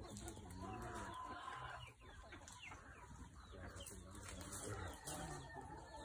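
Chickens clucking, loudest in the first two seconds.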